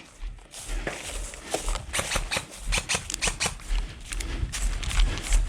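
Irregular clicks, scuffs and rattles with low thumps: an airsoft player's footsteps and gear knocking about while on the move.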